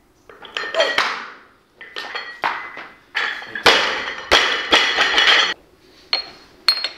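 Metallic clanking and rattling of a loaded barbell: the steel bar, plates and collars knock and clink together in a run of sharp, ringing hits, thickest in the middle. A few separate clinks follow near the end.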